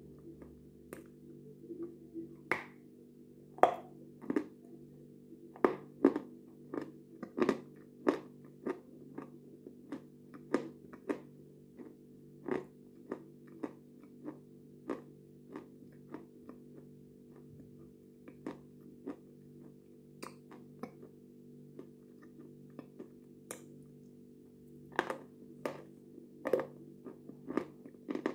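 Wet mouth sounds of eating yogurt: irregular lip smacks and tongue clicks as yogurt is licked off the foil lid, sparser in the middle stretch and busier near the end. A steady low hum runs underneath.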